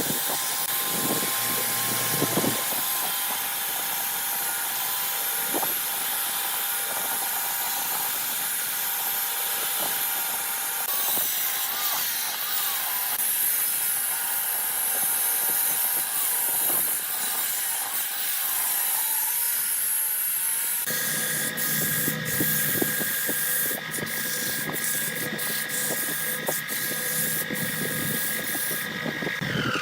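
Wood lathe running with a steady motor whine while a turning tool cuts the spinning wood with a rough hiss. About two-thirds of the way through the sound changes abruptly to a different steady machine tone with more low hum.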